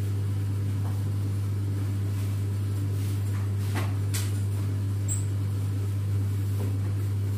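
Steady low electrical or machine hum, with a few faint clicks and taps.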